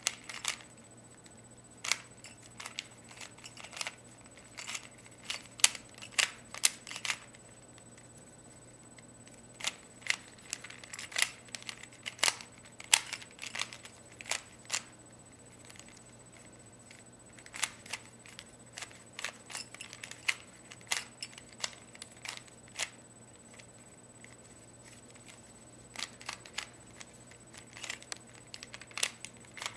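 Plastic Rubik's cube being turned by hand: quick runs of sharp clicks and clacks as its layers rotate, broken by short pauses.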